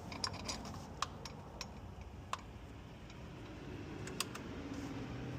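A scatter of sharp, light clicks and ticks at irregular intervals, the loudest about a second in and again near the four-second mark, over a low steady hum.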